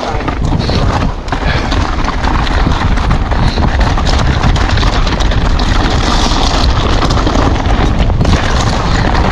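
Strong wind buffeting the microphone in a steady low roar, with rapid irregular knocks and rattles from a mountain bike being ridden over rough, rocky ground.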